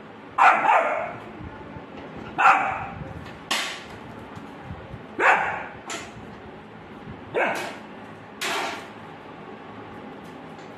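Rottweiler puppy barking, six single barks spaced a second or two apart.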